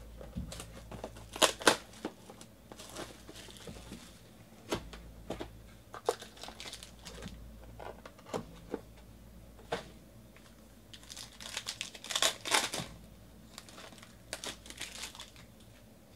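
Panini Elements football card box and its packaging being opened by hand: the wrapper crinkles and tears, the cardboard rustles, and the cards slide and tap in scattered short bursts. A denser flurry of crinkling comes about twelve seconds in.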